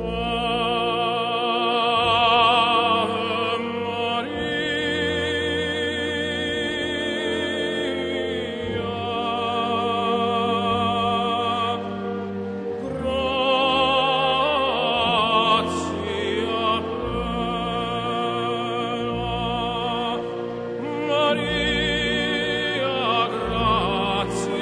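Background music: an operatic singer holding long notes with a wide vibrato in phrases of several seconds, over sustained orchestral accompaniment.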